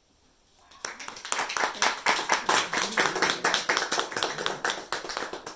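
A small group of people clapping close by, starting about a second in and tailing off near the end.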